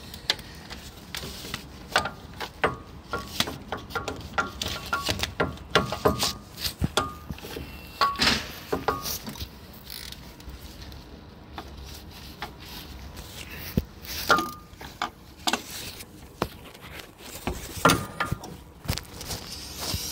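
Metal hand tools working on bolts: irregular clicks and clinks, some with a brief metallic ring. They come in quick runs about two to nine seconds in, again around fourteen seconds, and near the end.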